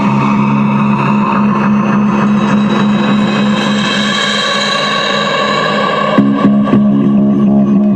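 Loud music played through a car stereo's three-way front component speakers, with a few sharp hits about six seconds in.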